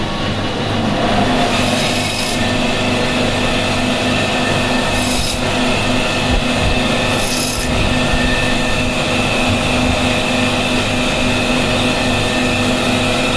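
Bone-cutting band saw running with a steady hum and whine while its blade cuts through a hilsa fish, with a short raspy hiss three times as the blade passes through the fish.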